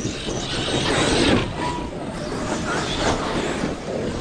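Large electric RC cars racing on a dirt track: brushless motors whining and tyres scrabbling over the dirt. The sound is loudest about a second in as a car passes close.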